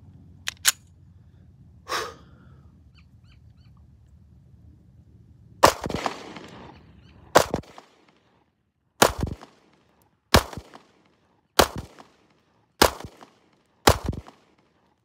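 Walther PPS M2 9 mm pistol fired seven times in slow, single shots about one to one and a half seconds apart, each a sharp crack with a short echo. Before the shooting starts there are two quick clicks and a clack of the pistol being readied.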